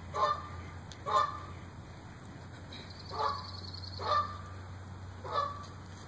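Yellow-bellied sapsucker giving short nasal, mewing calls, five in about six seconds, over a steady low hum.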